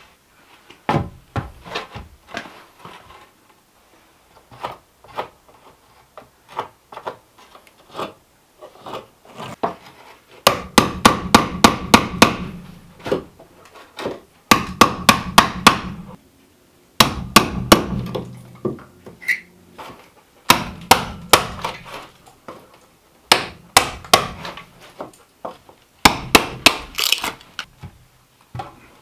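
Hammer blows on the cabin's wooden door frame, coming in six quick runs of about four or five strikes a second, some with a short ring. The first third holds only scattered light knocks.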